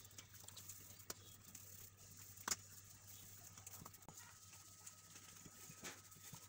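Near silence with a few faint soft taps and handling noises from hands pinching off balls of paratha dough and a rolling pin starting on a wooden board; the clearest tap comes about two and a half seconds in.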